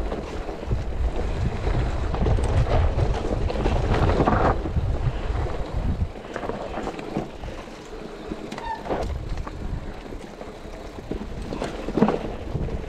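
Mountain bike rolling along a dirt trail, with wind buffeting the camera microphone and tyre rumble. About six seconds in it eases to quieter rolling with scattered rattles and clicks, and there is a sharp knock near the end.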